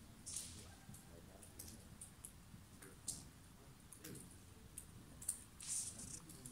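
Faint, scattered sharp clicks and ticks, a few louder ones about half a second in, around three seconds in and near the end, over a quiet low background rumble.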